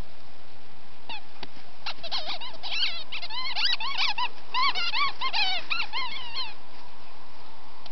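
Squeaky dog toy squeaking over and over as a dog bites and chews it: quick runs of short squeaks, each rising and falling in pitch, starting about a second in and stopping a little after the middle.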